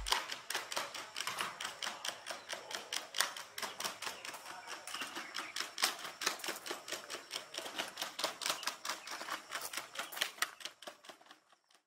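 Rapid, uneven clicking and tapping, several clicks a second, from a Unitree Go2 robot dog's feet and joints as it walks handstand-style down stone steps. The clicks thin out and stop near the end.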